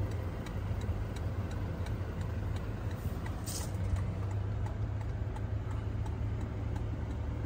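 Inside the cabin of a Toyota Land Cruiser Prado's 2.8-litre four-cylinder turbodiesel, the engine idles with a steady low hum. Over it the hazard-light flasher ticks evenly, about three ticks a second.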